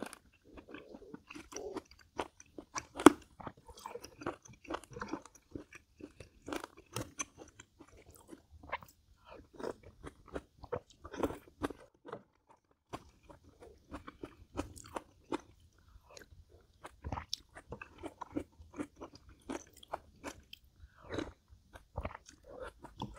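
A person chewing and eating food close to a clip-on microphone, with many small, irregular crunching and clicking mouth sounds.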